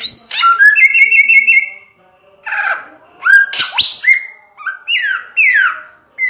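Samyong songbird singing loudly: clear whistled notes with quick up-and-down glides and a short warbling trill in the first two seconds, then a run of falling slurred whistles repeated about once a second.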